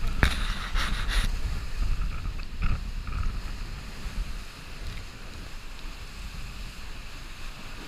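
Wind buffeting the microphone over rushing water and spray along the hull of a Class 40 racing sailboat driving hard in storm conditions. Bursts of splashing spray come in the first second or so and again near three seconds in, then it settles to a steadier rush.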